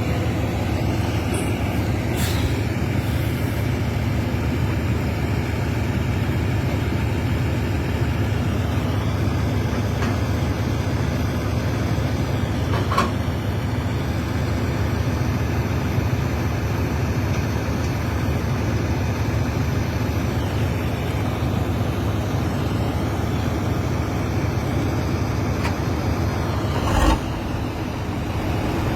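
Heavy diesel engines of a bulldozer towing a timber truck, running steadily. A few sharp knocks cut through, the loudest near the end.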